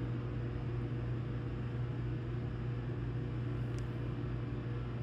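Steady low mechanical hum with an even hiss, like a motor or fan running without a break.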